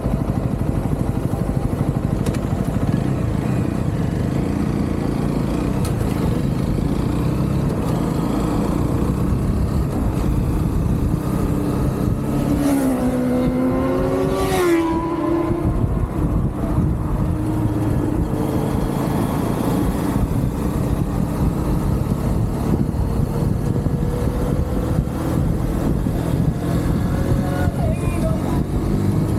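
UM Renegade Commando 125 motorcycle's engine running on the move, with steady road and wind noise. About halfway through, the engine pitch falls and then climbs again as the throttle changes.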